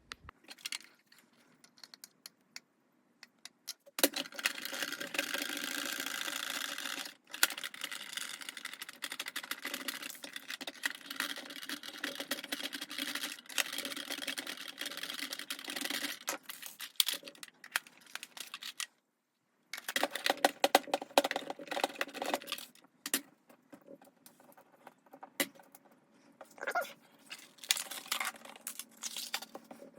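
Screws being backed out of a plastic toy ghost trap's housing with a screwdriver: a long stretch of dense clicking and rattling, then a shorter one, with scattered clicks of plastic parts being handled.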